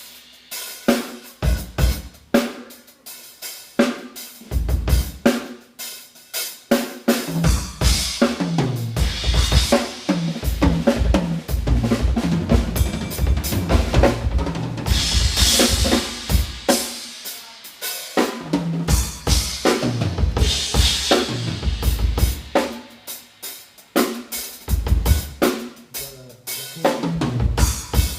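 Acoustic drum kit played during a sound check: a steady run of kick drum, snare and rimshot hits with hi-hat. Two loud cymbal crashes ring out, about halfway through and again about two-thirds of the way in.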